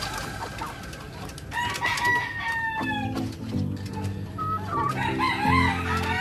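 Gamefowl rooster crowing once, a long call that falls in pitch, followed near the end by hens clucking, over background music with a steady beat.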